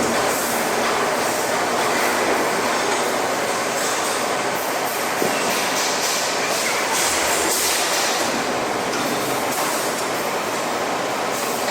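Tire-shredding machinery of a TDF (tire-derived fuel) line running, a loud, steady mechanical clatter and grinding noise with no pause.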